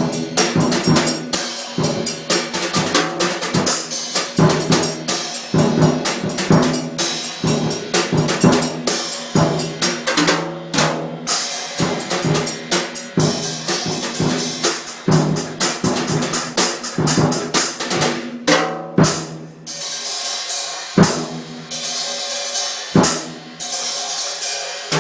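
Music led by a drum kit: a fast, busy stream of kick, snare and cymbal hits with held low notes underneath, broken by a few brief pauses.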